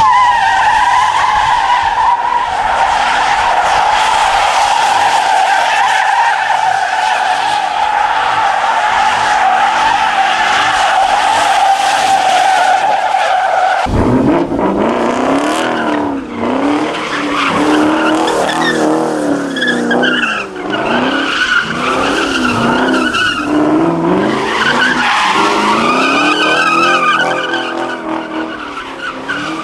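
A pickup truck's spinning tyres squeal in a steady, slightly falling screech. About halfway through, an abrupt cut brings in a Chevrolet Camaro doing a smoky burnout: its engine revs up and down in quick waves over screeching tyres.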